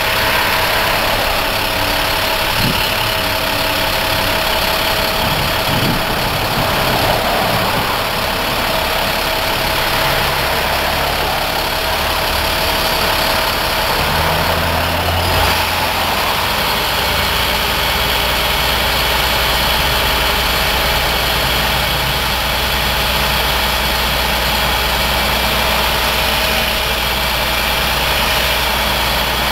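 Crane truck's engine running steadily as the boom hoists a sign. About halfway through there is a brief knock, and the engine's low note gets stronger and stays that way.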